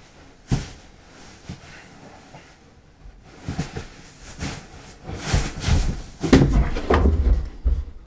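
Clothes and bedding rustling, with knocks and low thumps, as a body moves and shifts on the floor beside a bed. A sharp knock comes about half a second in, and from about three seconds on the rustling and thumping grow busier and louder.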